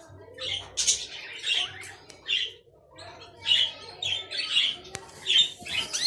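Canary chicks making raspy begging calls in short repeated bursts, about two a second, with a brief pause partway through.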